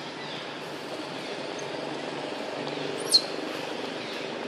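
Steady low background noise with one short, sharp bird chirp about three seconds in, high and quickly falling in pitch.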